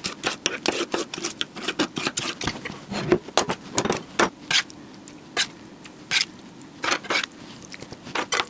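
Chef's knife chopping soft cooked pork on a cutting board, a quick run of repeated knocks, then sparser clicks and scrapes as the chopped meat is pushed into a glass bowl and stirred with a spatula.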